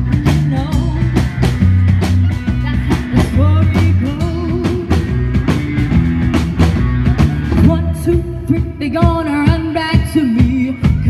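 Live rock band playing: a drum kit keeping a steady beat, bass guitar and a lead singer over the band.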